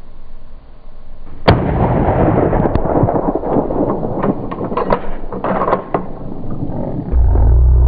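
A single gunshot about a second and a half in, followed by several seconds of crackling, rustling noise with scattered clicks. Near the end a loud, steady low rumble sets in.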